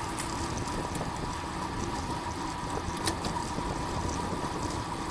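Steady wind rush and tyre rumble from a road bike riding at race speed, with a faint steady whine over it.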